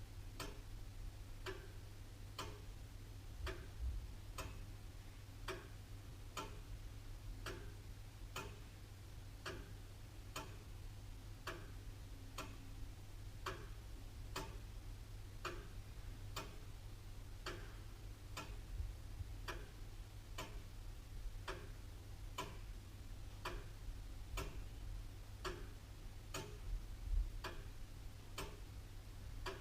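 Antique William Holliwell (Liverpool) clock ticking steadily, its escapement giving an even run of sharp ticks.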